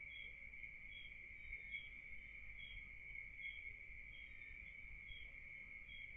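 Faint night insects, crickets, calling: a steady high trill with a short higher chirp repeating a little more than once a second.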